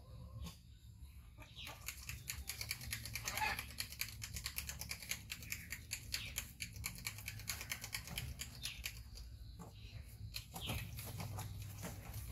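Quick rubbing and clicking of a small plastic baby milk bottle rolled back and forth between the palms, mixing the milk. It runs as a fast patter of clicks from about a second and a half in, fades near the end, then comes back briefly.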